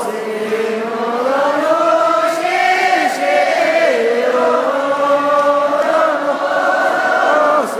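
A group of Sherpa women singing a shepru dance song together in unison, unaccompanied, holding long notes with slides between them.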